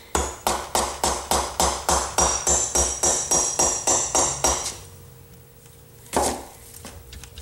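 Mallet striking the cylinder head of a 1973 Honda CB450 engine in a fast, even run of about three blows a second for some four and a half seconds, then one harder blow near the end. The blows are knocking the head loose from its gasket so it can be lifted off.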